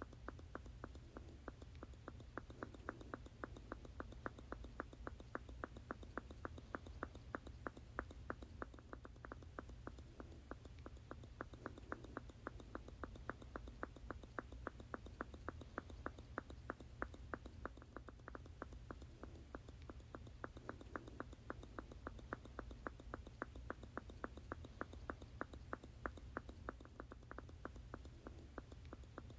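A squeeze bottle squirting over and over in a fast, even rhythm of about three to four short squirts a second, looped without change.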